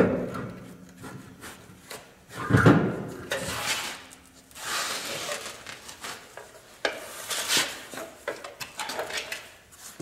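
A heavy truck wheel and tire being worked off the hub and over the wheel studs: knocks and scraping, with the loudest knock about two and a half seconds in and several longer scrapes after it.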